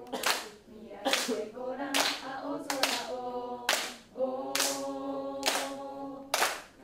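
Group of young voices singing together, with overhead hand claps in time about once a second.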